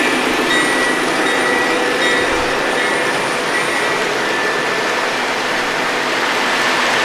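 MTH Premier O-gauge model freight train running on its track: a steady rolling and running noise with a few faint steady tones in it.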